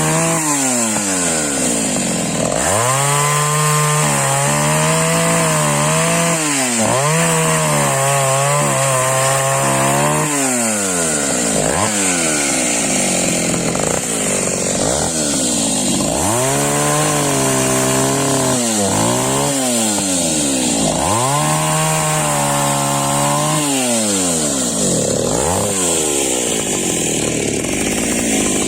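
Taiga 214 two-stroke chainsaw cutting firewood. The engine revs up and holds at high speed for a few seconds through each cut, then drops back toward idle between cuts, several times over.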